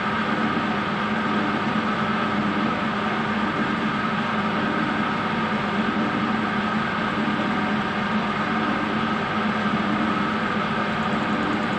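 Metal lathe running steadily while its cutting tool takes a light scratch cut from the lower face of the top ring groove in an aluminium-alloy motorcycle piston. The sound is an even machine noise with a low hum and a higher whine that hold unchanged throughout.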